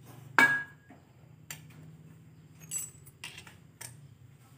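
Small metal parts clinking as the tin-can muffler pieces and a bolt are handled at a chainsaw engine: one sharp clink with a short ring about half a second in, then a few lighter clicks and taps.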